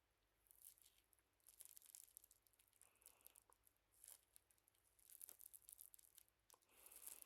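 Faint, intermittent crinkling and rustling of a small plastic ice pack held against the microphone, a little denser near the end.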